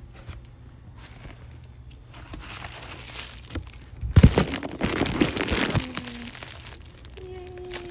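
Packaging being handled, crinkling and rustling, loudest about four to six seconds in, with a few knocks.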